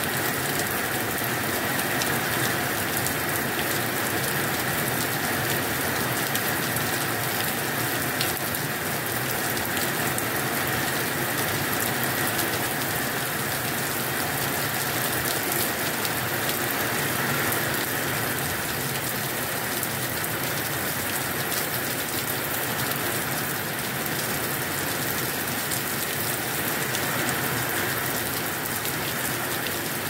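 Heavy rain falling steadily: an even hiss of rain with a dense patter of individual drops, unchanging throughout.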